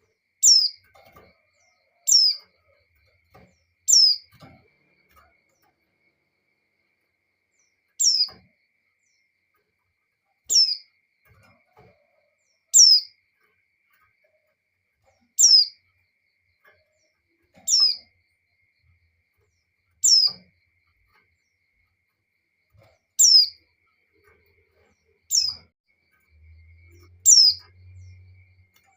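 Female white-eye (pleci) giving her calling note to draw a male: a dozen short, high chirps, each sliding down in pitch, repeated every two to three seconds.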